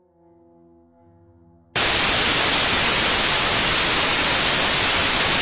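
Faint held musical tones, then a little under two seconds in a loud burst of TV static hiss cuts in suddenly and carries on, even and unbroken.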